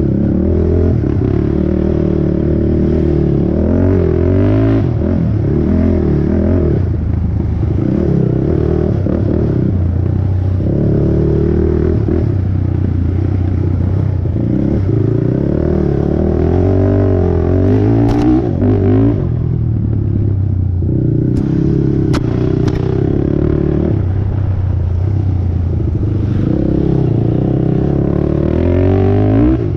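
450cc single-cylinder four-stroke race ATV engine revving hard, its pitch repeatedly rising and falling with the throttle as the quad is ridden over rough dirt trail, with clattering from the machine and a few sharp knocks about two-thirds of the way through.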